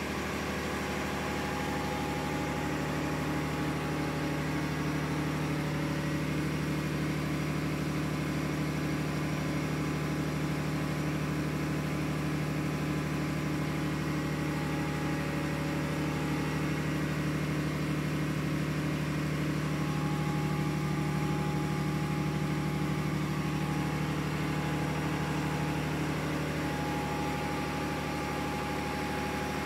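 Steady drone of running ship's engine-room machinery: a low hum with a faint, rapid pulsing tone above it.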